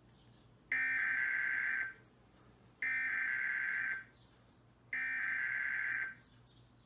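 Emergency Alert System SAME header data bursts: three identical warbling digital bursts of about a second each, about a second apart. They carry the coded alert header for the test.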